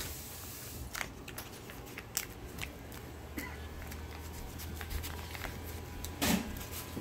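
Glue stick rubbing over folded paper, with light paper rustling and scattered small ticks and taps. One louder bump about six seconds in.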